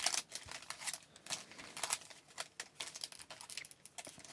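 Foil-wrapped trading card packs being handled and set down on a table: a string of light, irregular taps and crinkles.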